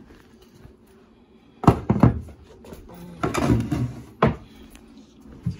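Wooden cabinet doors being handled: two sharp knocks close together, a scraping rattle, then a sharp click and a light thump near the end.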